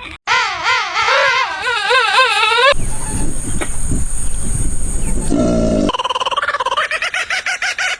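Animal calls from separate clips cut together: a loud call with a strongly wavering, warbling pitch, an abrupt switch to a noisy stretch with a low rumble and a steady high tone, then another wavering call starting about six seconds in.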